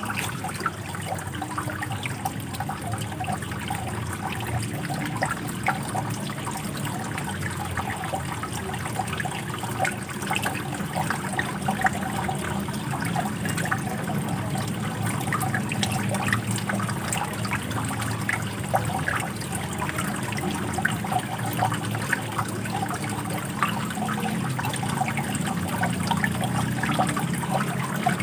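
Running water, a steady trickling and splashing with many small drops.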